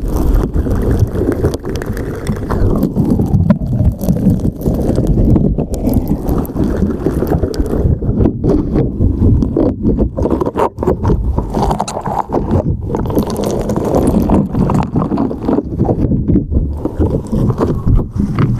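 Slime squeezed and stretched by hand right against a microphone: continuous wet squelching, dense with small pops and crackles.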